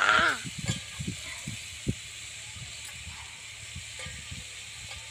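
Goat tripe frying in an aluminium pan over a wood fire: a faint steady sizzle with soft knocks and scrapes as it is stirred by hand, one sharper knock about two seconds in. A short, loud animal call sounds right at the start.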